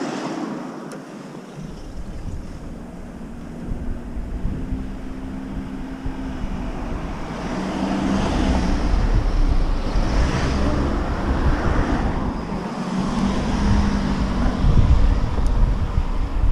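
Wind rushing over the microphone of a camera on a moving bicycle, a low rumble that grows stronger through the stretch, with road noise and the hum of passing cars now and then.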